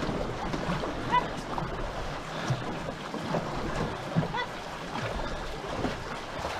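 Paddles of a two-person racing canoe dipping and pulling through the water in a steady rhythm, with water washing past the hull. Two brief high-pitched sounds, about a second in and again about four seconds in.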